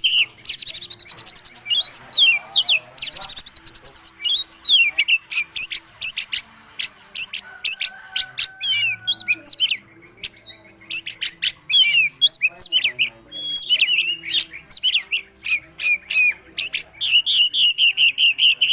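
Oriental magpie-robin (kacer) singing a fast, varied song of whistled sweeps, trills and chattering notes, full of mimicked song material. Near the end it settles into a rapid repeated trill.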